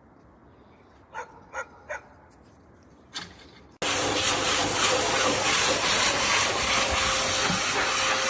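Three short dog yips, close together, about a second in, with a brief scuffle a little later. Then, about four seconds in, the sound cuts abruptly to a loud, steady hiss with a faint steady tone through it.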